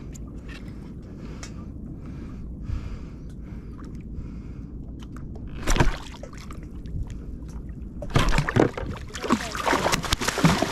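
A hooked fish thrashing at the surface beside a kayak: one sharp splash about six seconds in, then a run of loud splashing over the last few seconds, over a steady low rumble of wind on the microphone.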